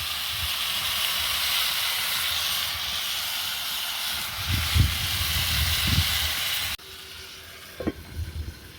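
Steady loud hiss of a hot pot of boiling salt water steaming and sizzling on an open fire, with a few low knocks near the middle. The hiss cuts off abruptly near the end.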